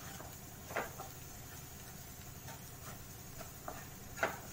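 A wooden spatula stirring and scraping a thick onion-and-spice masala around a kadhai, with two short, sharp scrapes, about a second in and near the end, over a faint steady hum.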